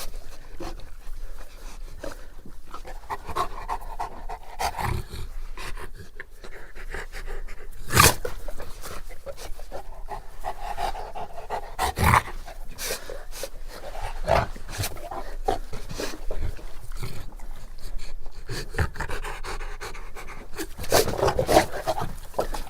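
Bullmastiff panting deeply, in repeated swelling breaths, with a few sharp clicks in between.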